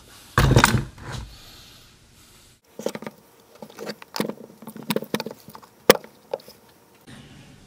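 Chainsaw engine parts and the plastic housing being handled over a workbench: a dull thump about half a second in, then a run of irregular clicks and light knocks, with one sharp click near six seconds.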